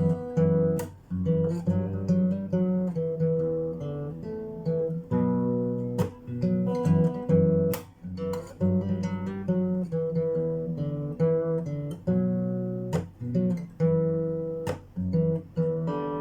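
Phill Pro acoustic guitar played in strummed chords, some cut short and some left to ring.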